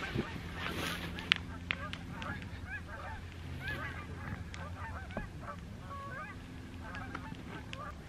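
A flock of farm fowl calling over and over in short, honking calls, with a low steady hum underneath and a sharp click about a second in.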